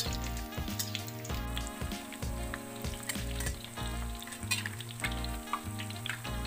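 Golden-brown tempe frying and sizzling in hot oil in a wok. A wire spider strainer and a metal spatula clink and scrape against the pan as the cooked pieces are scooped out. Background music with a steady bass plays underneath.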